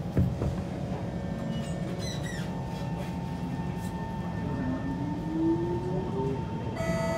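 Kawasaki C151 metro train running, heard from inside: a steady low rumble of the wheels and running gear, with a sharp knock just after the start. About five seconds in, the traction motors give a whine that rises in pitch, and near the end an onboard chime begins.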